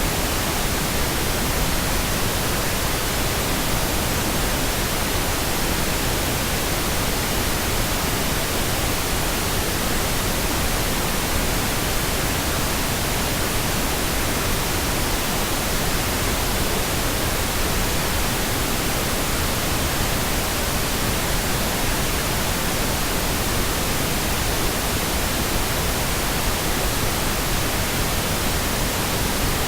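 Steady pink noise: an even, unbroken hiss spread across the whole range from deep rumble to high treble, with no change in level or character.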